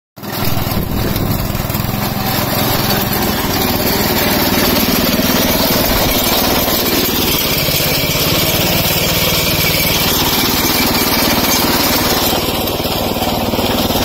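Small engine of a walk-behind rice reaper running steadily under load as its cutter bar mows through standing rice, with a fast, even engine pulse.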